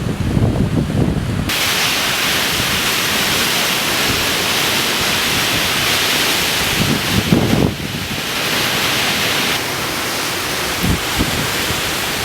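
Hurricane Irene's wind and rain: gusts buffeting the microphone at first, then, from about a second and a half in, a loud, steady rushing hiss, with another brief gust on the microphone about two thirds of the way through.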